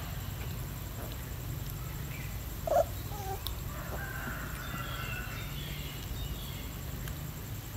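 Animal calls: one short pitched call about three seconds in, then a couple of seconds of high chirping calls, over a low steady rumble.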